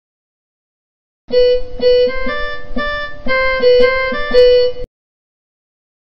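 Violin playing a short melody of about ten notes, lasting about three and a half seconds.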